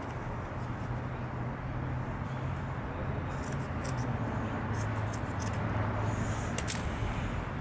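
Hand shears snipping through woven titanium exhaust heat wrap, a few short crisp cuts about three seconds in, around five seconds and again near the end, over a steady low background hum.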